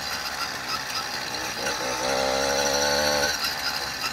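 Small two-stroke motorized-bicycle kit engine running at low road speed with a buzzing note. It gets louder for about a second and a half in the middle, then drops back.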